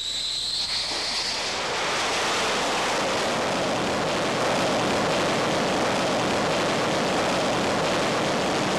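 Fighter jet engine: a high whine rising in pitch over the first second or so, then a steady rushing noise of jet thrust.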